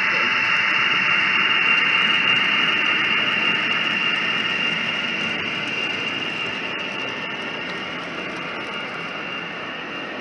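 Model train, a green BR Class 35 Hymek diesel locomotive hauling wagons, running past with a steady high whine and hiss that fades gradually as the train moves away.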